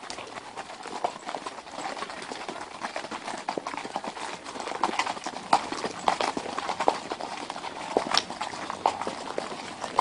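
Hooves of several Icelandic horses clip-clopping at a walk on a gravel track, an irregular patter of hoofbeats that grows louder and sharper about halfway through.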